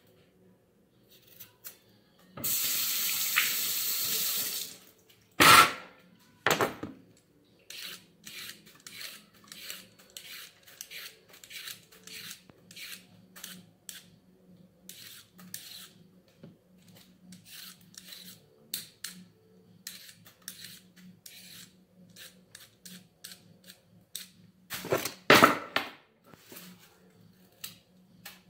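Carrots being peeled with a hand vegetable peeler: a long run of short scraping strokes, about two a second. Early on a tap runs for about two seconds and there are a couple of knocks, and a louder clatter comes near the end.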